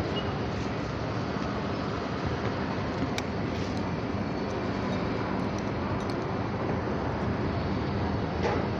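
Motorcycle engine idling steadily with the bike standing in neutral.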